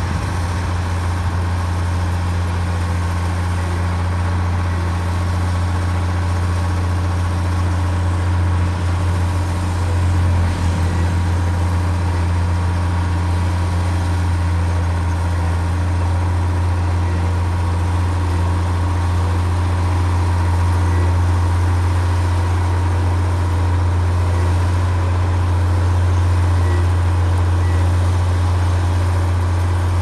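Komatsu D53P bulldozer's diesel engine running steadily with a deep, even hum, briefly shifting about ten seconds in.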